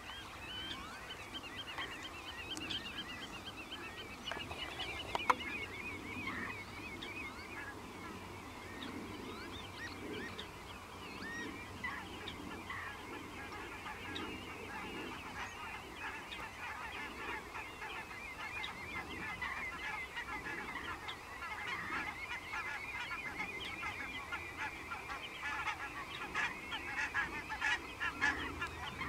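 Birds calling: many overlapping high chirps and trills, with lower calls repeating underneath. A single sharp click about five seconds in.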